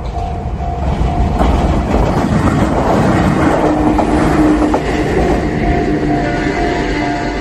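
A Joshin Electric Railway train passing over a level crossing: its rumble swells to its loudest mid-way, with a few wheel clacks, while the crossing's warning bell keeps ringing about twice a second, heard plainly at the start and again near the end as the train moves off.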